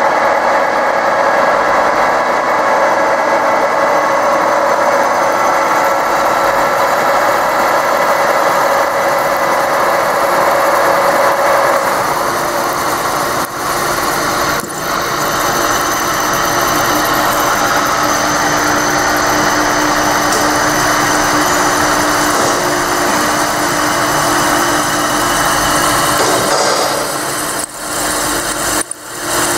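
Drill press running steadily, its cutter cutting into a part clamped in a machine vise. The level dips briefly a few times.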